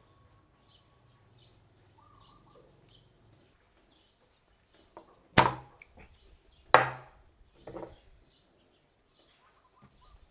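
Two loud, sharp wooden knocks about a second and a half apart, followed by a softer third knock, with birds chirping faintly.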